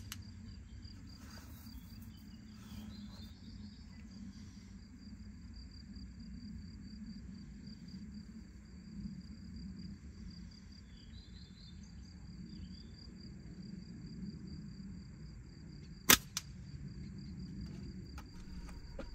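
A flat-band slingshot fired once about 16 seconds in: a sharp snap as the bands are released, followed a moment later by a fainter click. Steady high chirping of insects runs underneath.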